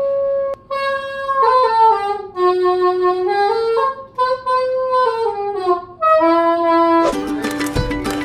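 Small plastic saxophone-style wind instrument played slowly: one long held note, then a handful of single notes stepping down and back up, with short breaks between them. Near the end it gives way to louder background music and clatter.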